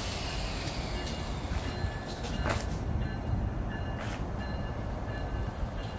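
Amtrak Acela passenger cars rolling past at low speed: a steady rumble of steel wheels on rail, with faint high whining tones and a few sharp clicks.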